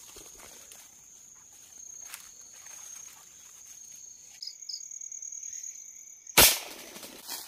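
A steady high drone of night insects, then a single sharp shot about six and a half seconds in: a hunter firing at a wild junglefowl held in the torch beam.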